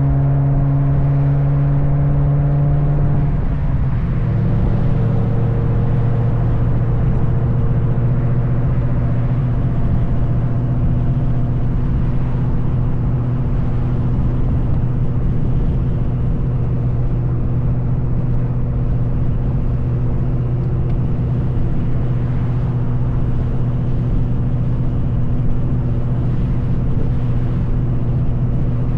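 2003 Mustang SVT Cobra's supercharged 4.6 L V8 running through an SLP Loudmouth exhaust while the car drives. The engine note drops about three and a half seconds in, then holds a steady drone.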